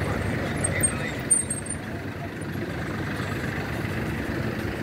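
Road traffic on a busy city street: a steady rumble of passing vehicles, with two short sharp sounds about a second in.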